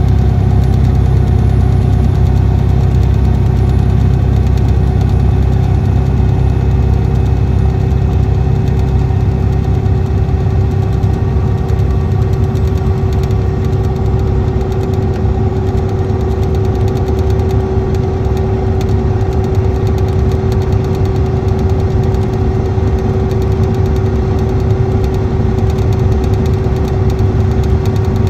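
Cummins ISX 11.9 L six-cylinder diesel engine of a 2014 Motor Coach Industries D4500CT coach running at a steady engine speed: a low drone with a steady mid-pitched hum over it, unchanging throughout.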